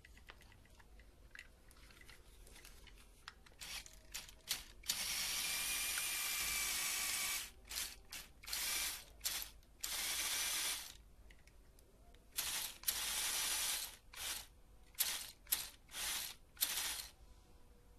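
Lego Technic buggy's fast L-type drive motor and plastic gear train whirring in bursts as it is switched on and off, the wheels spinning free with the model held in the air. About a dozen runs, the longest about two and a half seconds, the rest short blips. The motor has had its reduction gear removed, so it runs fast but weak.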